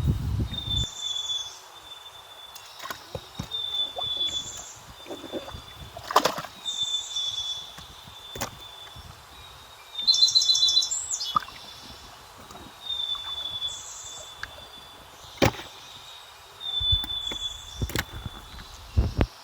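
A bird calling in short high phrases, each ending in a falling note, repeated every few seconds, with one louder rapid trill about halfway through. Scattered sharp knocks come in between.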